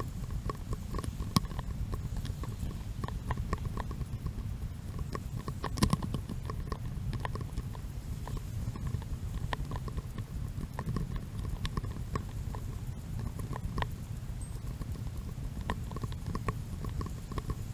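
Sped-up footsteps on a dirt trail, a quick, irregular run of clicks and knocks over a steady low rumble.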